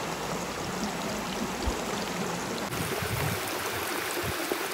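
A river flowing in a steady, even rush of water.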